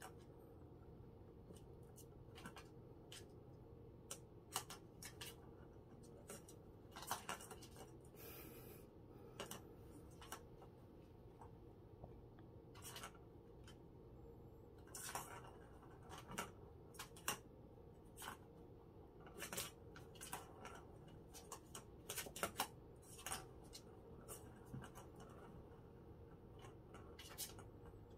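Plastic ball-track cat toy clicking and rattling as a kitten bats the ball around its circular track: scattered irregular clicks, with a few longer rattles.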